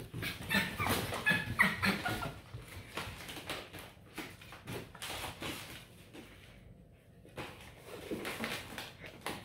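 Beagle puppy whimpering in short, high cries that bend in pitch over the first two seconds, then quieter scattered clicks and scuffles from puppies playing.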